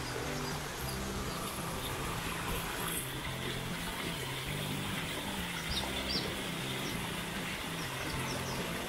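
Small stream running and splashing over rocks in a steady rush, with background music of held low notes that change pitch underneath.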